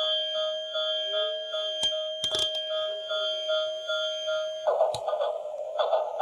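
Electronic toy sound effect: a steady beeping tone pulsing about three times a second, which cuts off suddenly near the end and gives way to a rougher buzzing sound with a few clicks.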